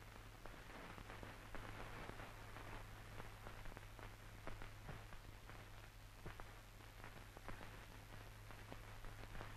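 Faint surface noise of an old film soundtrack: an even hiss over a steady low hum, with scattered irregular crackles and clicks.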